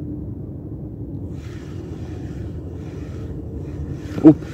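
Wind buffeting the microphone as a steady low rumble, then one short, loud knock about four seconds in, as a zander strikes the jig and the spinning rod is swept up to set the hook.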